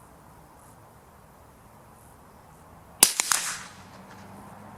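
A single shot from a CZ457 .22LR rifle firing Eley high-velocity ammunition, about three seconds in: one sharp crack followed by a brief echo.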